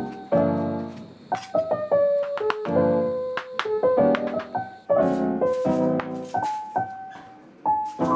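Background piano music playing a gentle run of notes and chords, with sharp taps of a chef's knife chopping on a wooden cutting board.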